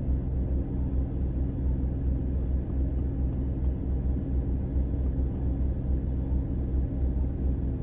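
Steady low hum of a parked car's engine idling, heard inside the cabin.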